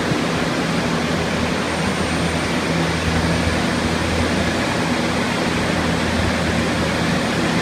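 A roomful of water-damage drying equipment, dozens of air movers and dehumidifiers, running together: a steady, loud rush of air over a constant low motor hum.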